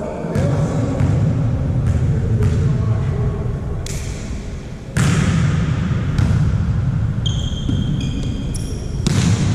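Volleyball play in a sports hall: a string of sharp ball hits and bounces, echoing, over a steady low hall rumble. From about seven seconds in come short, high squeaks of shoes on the court floor.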